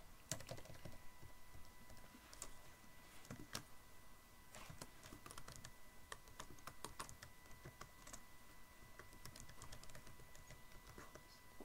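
Computer keyboard typing: faint, irregular key clicks in short runs with brief pauses between them.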